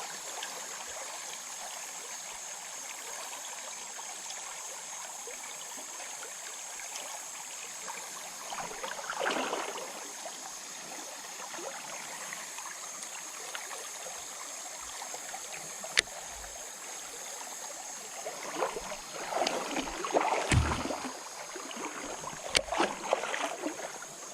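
Creek water running with a steady rush. Louder splashing swells come about nine seconds in and again near the end, with a couple of sharp clicks.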